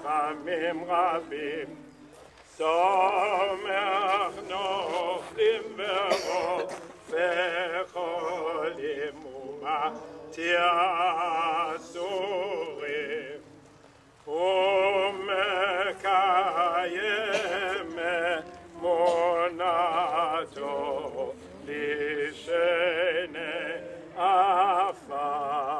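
A single voice singing in an operatic style with strong vibrato, in long phrases broken by short pauses about two seconds in and again about fourteen seconds in.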